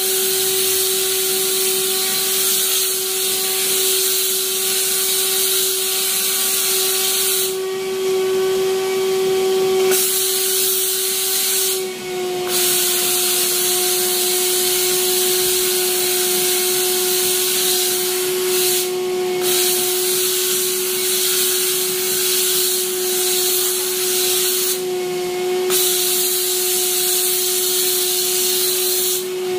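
A mattress-cleaning machine runs steadily with a high motor whine, and its hose nozzle makes a rushing hiss as it is worked over the mattress. The hiss cuts out briefly several times while the motor keeps running.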